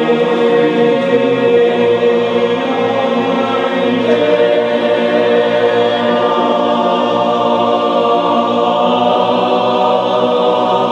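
An a cappella choir singing held notes together as a vocal warm-up exercise.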